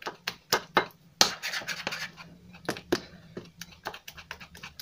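A utensil stirring a thick mixture of cornstarch and PVA glue in a glass bowl. It clicks irregularly against the glass, a few times a second, with a longer scrape about a second in.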